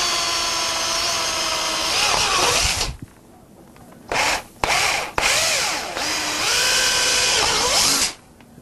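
Handheld electric drill boring holes through a spacer ring clamped in a vise, the motor whine dipping and rising in pitch as the trigger and load change. It runs for about three seconds, stops, gives two short spurts, then runs again and cuts off just before the end.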